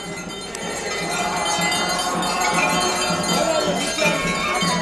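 Many temple bells ringing continuously together during the Ganga aarti, a dense clanging wash, with crowd voices faintly underneath.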